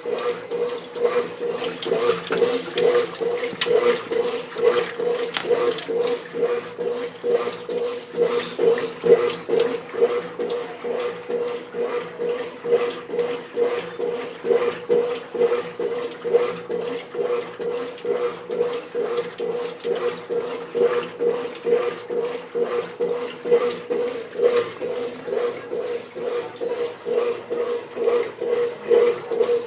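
Brastemp 5 kg top-loading washing machine agitating a load: a steady motor hum with rhythmic sloshing of water and clothes about twice a second.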